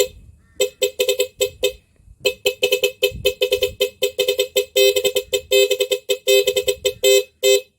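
Two electric horns on an electric scooter, pulsed by a musical horn controller, sounding a rapid rhythmic string of short beeps that play a tune. There is a brief pause about two seconds in. The freshly wired controller is working.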